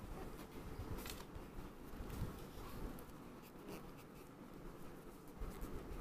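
Faint scratchy rubbing of a cotton pad against a fingernail, wiping off nail polish with acetone remover, with a few short scrapes.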